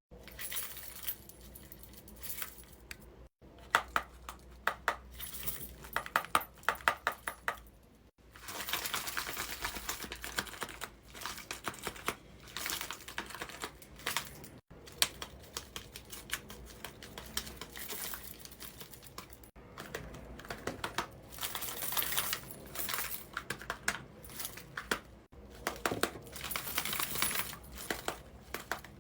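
Paper being handled and folded: faint, irregular crinkling and rustling with many small clicks, broken off by a few brief cuts.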